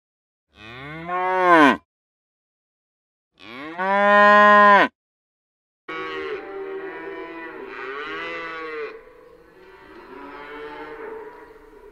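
Cattle mooing. Two loud separate moos each rise and then fall in pitch, with silence between them. From about six seconds in, several quieter moos overlap, as from more than one animal.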